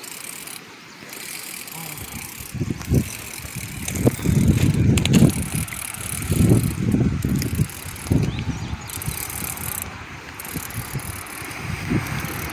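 Baitcasting reel being cranked with a steady mechanical clicking as a hooked catfish is reeled in. Irregular low rumbles come and go through the middle.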